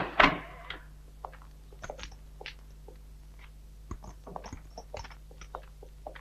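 A heavy thump just after the start, then faint, scattered footsteps and small clicks of people walking in, over a steady low hum.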